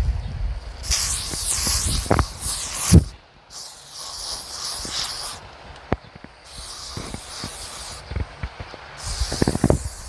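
Four separate bursts of high hissing, each one to two seconds long and starting and stopping sharply. A low rumble runs under the first three seconds, and a few sharp clicks come near the end.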